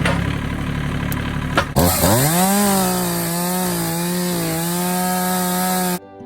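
Stihl two-stroke chainsaw running rough and noisy at first, then about two seconds in revving up quickly to full throttle and holding a steady high whine, until it cuts off abruptly near the end.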